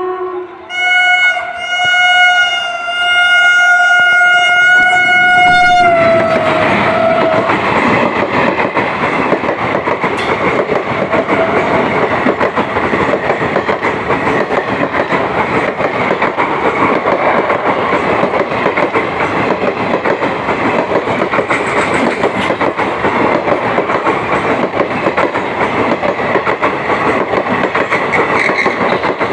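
WAP-5 electric locomotive's horn sounding a blast of about five seconds, dipping once near the start and sagging slightly in pitch as it cuts off. Then the train's wheels and coaches clatter and rumble steadily on the track as it moves out.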